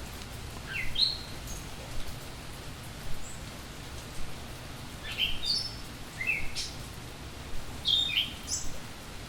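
A songbird chirping in short phrases of notes that step up in pitch, four phrases a few seconds apart, over the steady hiss of falling rain.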